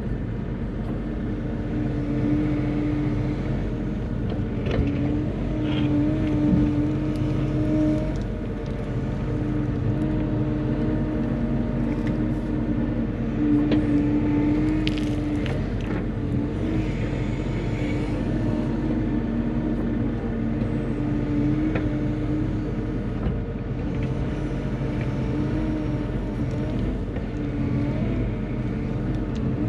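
Bobcat E35 compact excavator's diesel engine running steadily as it moves dirt, with a tone that swells and fades in stretches as the hydraulics are worked, and a few knocks.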